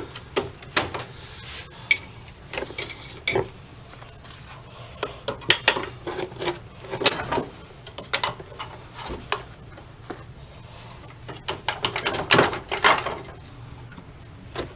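Hand wrench working the bolt of a golf cart's rear leaf-spring shackle: irregular sharp metal clinks and clicks of tool against bolt and bracket, coming thickest about twelve seconds in.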